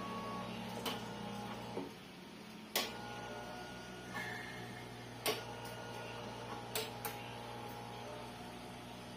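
Mindray BC-2600 hematology analyzer working through a count cycle. A steady low mechanical hum runs under sharp clicks that come at irregular gaps of one to two seconds. The hum stops for about a second near the two-second mark, then resumes.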